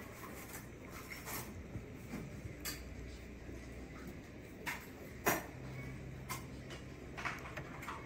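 Scattered light clicks and taps, the sharpest about five seconds in, over low room noise; a low steady hum comes in just past the middle.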